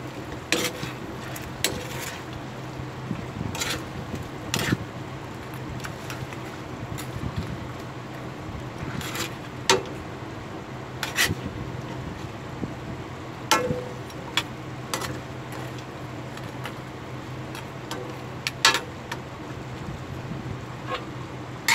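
Metal spatula clinking and scraping against an aluminium wok while stirring meat in sauce, in irregular clinks every second or two, over a steady low hum.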